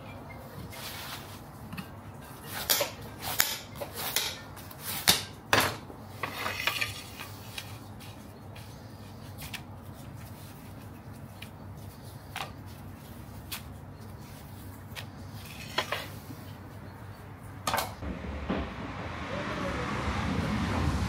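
Knife and plates clattering as a cooked gözleme is cut on a wooden board and plated: a series of sharp knocks and clinks, busiest in the first six seconds and sparser after. Near the end a low, steady background rumble rises.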